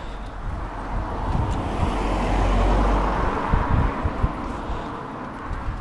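A car driving past, its tyre and engine noise swelling to a peak about two to three seconds in and then fading away.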